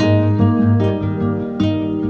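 Background music: a gentle plucked-string piece, harp- or guitar-like, with notes plucked every few tenths of a second over a held low bass.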